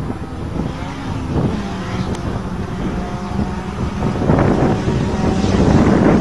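A pack of small cars racing flat out across a rough field, their engines running hard together over tyre and ground noise, getting louder from about four seconds in as they come nearer. Wind buffets the microphone.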